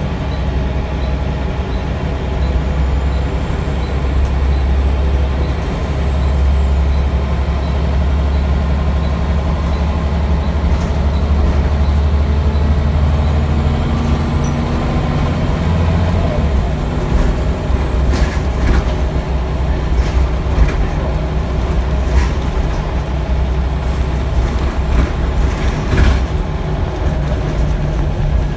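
Interior of a Scania L94UB single-deck bus on the move: the diesel engine drones steadily, with a faint tick about twice a second in the first half. About halfway through the engine note changes, and sharp rattles and knocks from the body and fittings follow.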